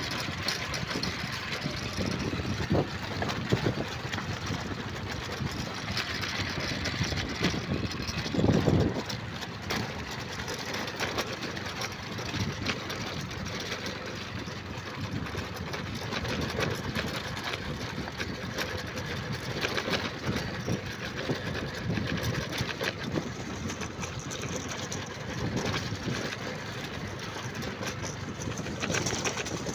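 A motor running steadily under a dense rushing noise, with a louder low thump about eight seconds in.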